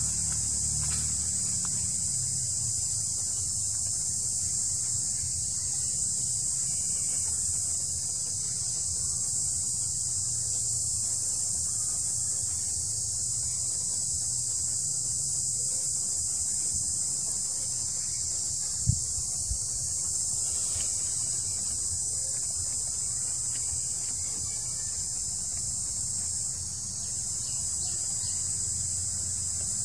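Steady, high-pitched chorus of insects shrilling without a break, over a low rumble. A single dull thump comes about two-thirds of the way through.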